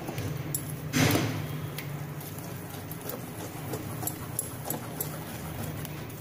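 Steel spoon beating thin besan (gram flour) batter in a glass bowl: repeated light clicks of the spoon against the glass, with a louder knock about a second in.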